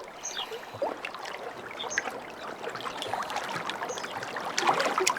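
Lake water lapping and splashing, with a few short high bird chirps over it.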